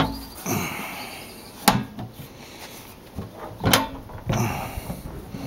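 Ernst Sorst & Co HR13 steel case being shut and handled: a few sharp metal clacks and knocks from its hinged lid and body, with softer rubbing between them.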